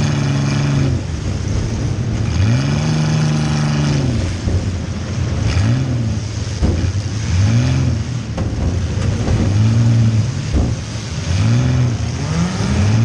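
Compact demolition-derby car's engine, heard from inside the cabin, revving up and falling back again and again as the car accelerates and backs off. A couple of sharp knocks sound about halfway through and again near two-thirds of the way.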